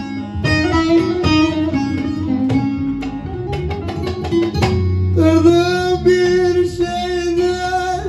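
Bağlama (Turkish long-necked saz) played in a run of quick plucked notes; about five seconds in, a man's singing voice comes in with long held notes over the instrument.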